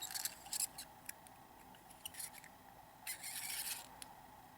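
Wooden toy mail van rolling on toy train track by hand, making faint light clicks and clatter, with a short burst of rattling about three seconds in.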